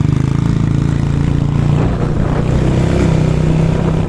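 Motorcycle engine running steadily while riding along the street at low speed, its pitch holding nearly level.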